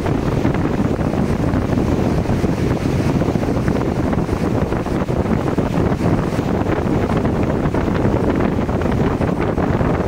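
Wind buffeting the microphone of a boat under way: a steady, loud, low rumbling noise without breaks.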